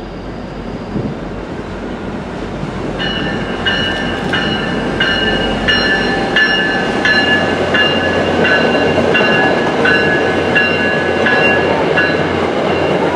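MBTA commuter train led by an MP36 diesel locomotive rumbling closer, growing steadily louder. About three seconds in, a bell starts ringing in even strikes about 0.7 s apart and keeps on until near the end.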